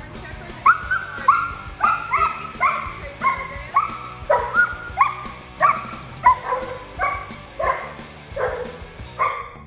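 A young German Shepherd barking over and over, roughly two barks a second, over background music.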